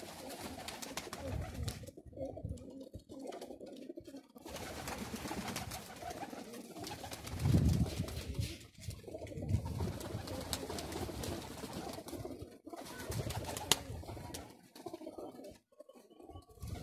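Domestic pigeons cooing, low repeated coos that are loudest about halfway through, with a few light clicks among them.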